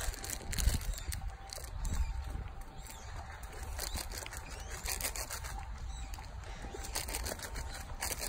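Irregular rustling and clicking of clothing and phone handling as a person walks carrying a small dog, over a steady low rumble.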